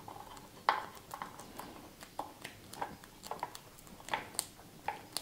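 Fingers firmly pressing down and smoothing black cloth tape folded around plastic wire connectors: a scatter of light, irregular taps and crinkles.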